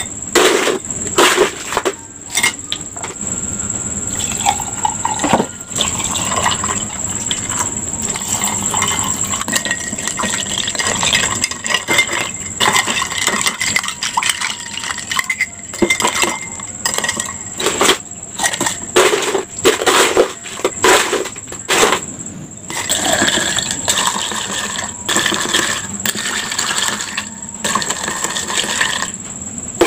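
Ice cubes clinking as they are scooped and dropped into glass mugs. Then tea is poured over the ice in a steady run through the middle. Near the end, a spoon clinks against the ice and glass as the drinks are stirred.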